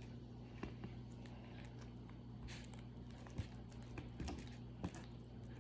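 Homemade slime being kneaded and stretched by hand: faint, scattered sticky clicks and squelches.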